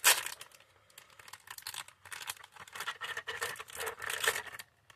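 Butter-biscuit packet crinkling and rustling in the hands as it is worked open, in an irregular run of crackles.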